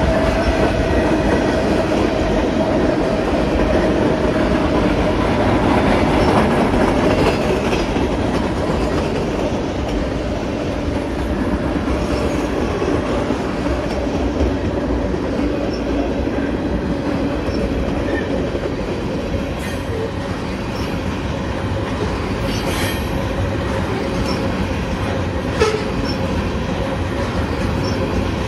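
Freight train cars rolling past at close range, tank cars then covered hoppers, their wheels clattering steadily over the rails with a steady ringing tone from the wheels. There are a few sharp clacks in the second half.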